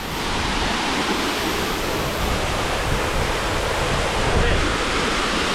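Steady rush of a nearby mountain waterfall, with wind buffeting the microphone in a low, uneven rumble.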